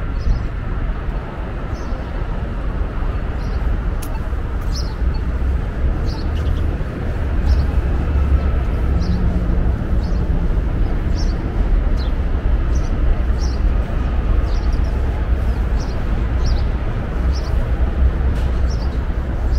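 City street ambience: a steady low rumble of traffic, with a small bird chirping over it about once a second.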